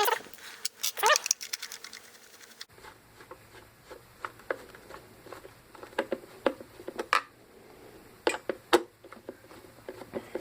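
A cat meows twice in the first second or so. Then come sparse, light clicks and taps as screws are worked out of a plastic pump housing with a Phillips screwdriver.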